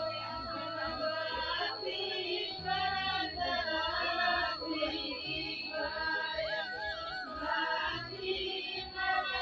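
A song with a high female singing voice in phrases over steady low bass notes, with a thin steady high tone underneath.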